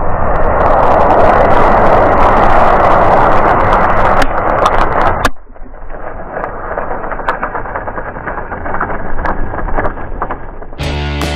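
A big pile of matches burning in a flare-up: a loud rush of flame with sharp crackles and pops as match heads ignite. About five seconds in it drops abruptly to a quieter crackling burn, and rock guitar music comes in near the end.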